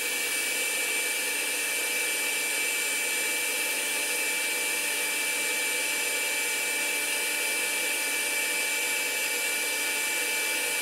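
Electric heat gun (paint stripper) running steadily, its fan blowing with a thin high whine on top of the air noise.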